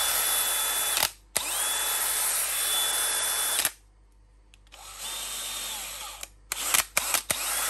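DeWalt DCD999 brushless hammer drill running with no load in short trigger pulls: each time the motor spins up with a rising whine and then runs steadily. It stops about a second in and runs again for about two seconds. After a pause comes a quieter, shorter run, then a quick series of sharp clicks, and a last run starts near the end.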